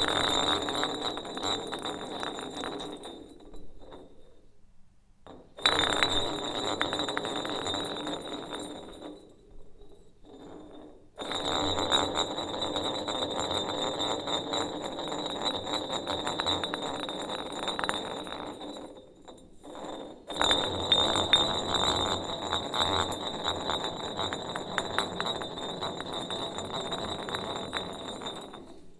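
A bottle spinning on a hard surface, rattling fast as it turns and dying away as it slows. It is spun four times, each spin starting with a sharp clatter.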